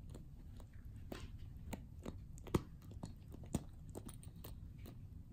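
Kitten gnawing on a small green toy: faint, irregular clicks and crunches, with two louder ones around the middle.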